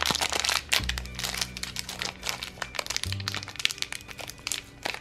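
Crinkling and crackling of a small shiny plastic blind bag being torn open and unwrapped by hand, over background music with sustained low notes.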